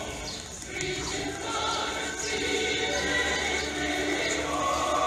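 A choir singing a slow hymn in long, held notes that shift in pitch about once a second.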